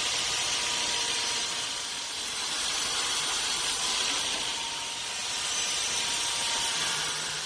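Sawmill saw cutting a teak log: a steady hissing noise with a faint whine.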